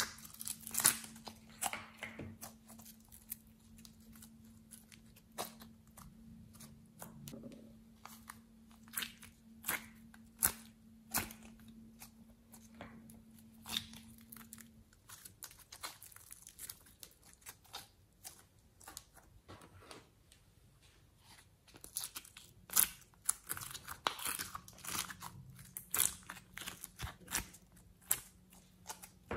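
Thick glossy slime being squeezed, pinched and peeled out of plastic moulds by hand: an irregular run of sticky pops, clicks and crackles, busier near the end, over a faint steady hum.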